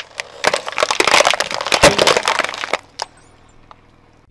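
Car tyre rolling over a row of hollow plastic toy eggs, crushing them one after another: a dense run of cracks and crunches lasting about two and a half seconds, then one last crack.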